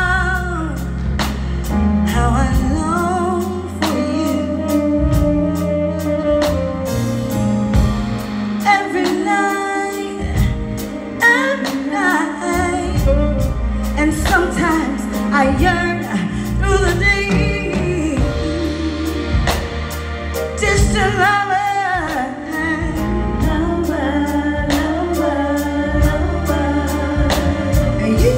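A woman singing a slow soul ballad live, her long notes wavering with vibrato, backed by keyboard, bass guitar and drums with a steady ticking beat.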